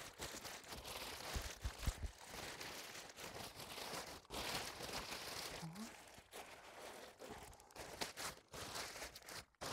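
Faint, irregular rustling and crinkling of plastic shopping bags being stuffed into a bag holder, with a couple of soft knocks about two seconds in.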